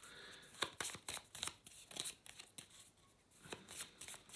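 A discard pile of game cards being shuffled by hand: a run of quick, irregular snaps and slides of card on card.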